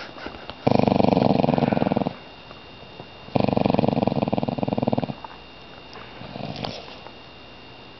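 Sleeping dog snoring: two long snores of about a second and a half each, then a fainter short one near the end.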